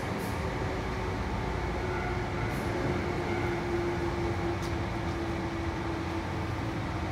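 Hankyu 5100-series electric commuter train running along the line, heard from the cab: a steady rumble of wheels on rail with a thin motor whine that slowly falls a little in pitch.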